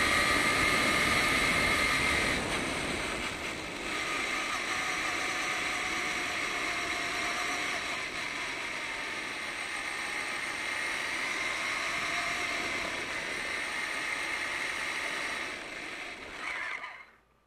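Electric RC monster truck's drivetrain whining as it drives over a rough dirt road, with steady noise from the tyres and body. The whine's pitch drifts with speed, and the sound dies away near the end as the truck stops.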